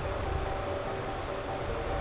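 Background music of slow held notes that step from one pitch to the next, over a steady rushing noise.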